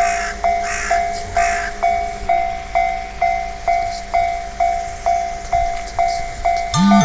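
Japanese level-crossing warning bell ringing steadily, a struck electronic tone about twice a second. Near the end, a phone's email notification chime starts playing, with the phone's vibration motor buzzing.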